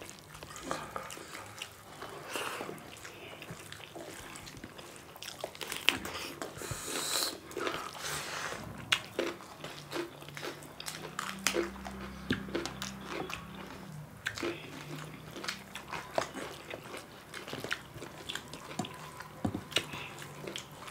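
Two people eating rice and rajma curry with their hands from steel plates, heard close-up: chewing and mouth smacks with many short, irregular clicks, and fingers working the rice on the plates.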